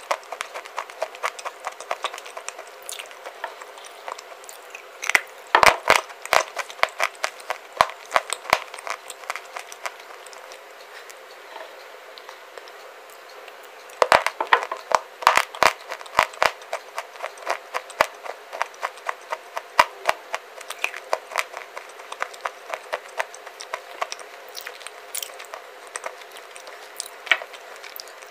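Close-up crunching of baked clay bars being bitten and chewed: rapid runs of sharp cracks, with bursts of louder bites about five seconds in and again around fourteen seconds.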